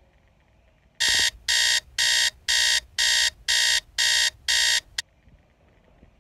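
Electronic alarm beeping: eight high-pitched beeps at about two a second, starting about a second in and cutting off abruptly after about four seconds.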